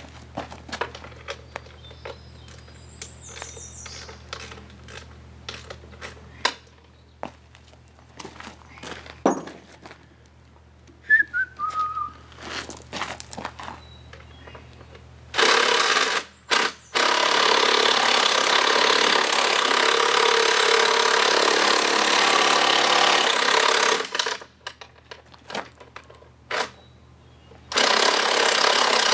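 Power tool running in a long burst of about nine seconds, briefly broken near its start, and again for a second or so near the end, worked on an outboard powerhead. Before it come scattered metal clicks and clinks of hand work on the motor.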